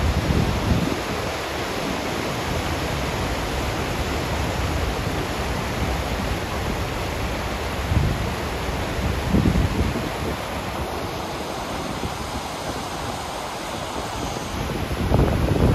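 River rapids rushing over boulders: a steady roar of white water. Wind buffets the microphone a few times, briefly, near the start, about halfway through and near the end.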